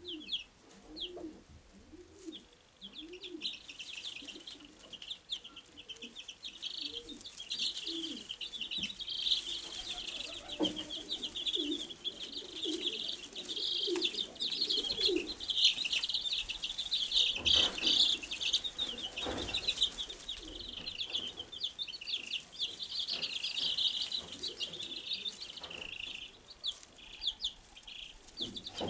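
A brood of Wyandotte bantam chicks peeping: many short, high chirps overlapping, busiest in the middle.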